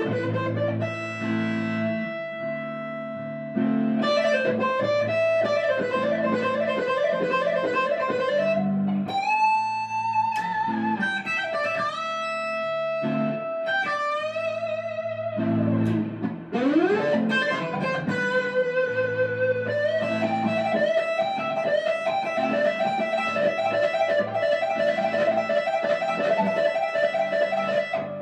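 Background music: an electric guitar playing a lead line, with notes that bend and glide in pitch over a low accompaniment.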